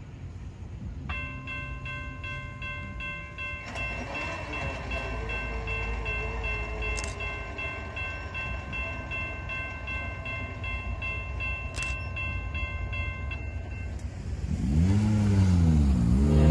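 Diesel locomotive horn sounding one steady multi-note chord for about twelve seconds over the low rumble of a passing train. About fifteen seconds in, louder music with sweeping tones comes in.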